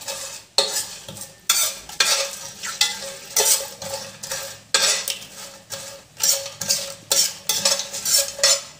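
Spoon scraping around a large non-stick pot, stirring whole spices in hot ghee at about two strokes a second, with the ghee sizzling.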